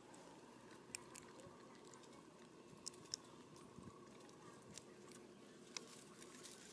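Faint, sparse clicks and crunches from a macaque chewing food, over a quiet outdoor background; about half a dozen short sharp clicks stand out.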